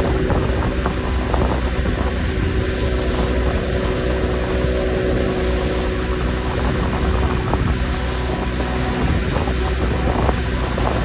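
Mercury 60 outboard motor running steadily at speed while towing a banana boat, mixed with wind buffeting the microphone and rushing water from the wake.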